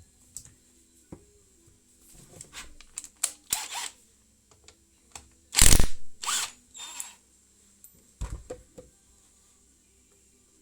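Hand-tool work on a motorcycle engine during a timing-chain job: scattered metallic clicks and short scraping rasps. The loudest rasp comes about halfway through, followed by a few shorter ones.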